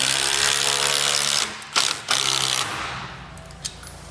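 A power driver runs a 3/8 by 1.5 inch lag bolt into wood. It goes in a long burst of about a second and a half, then a shorter burst after a brief pause with a click, then trails off.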